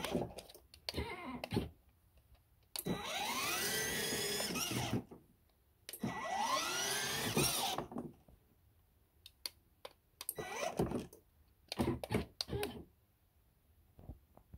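Electric drive motors and gearboxes of a Ford Ranger kids' ride-on car whining in two runs of about two seconds each, rising in pitch as they spin up at the start of each run. Scattered clicks and knocks come before, between and after the runs.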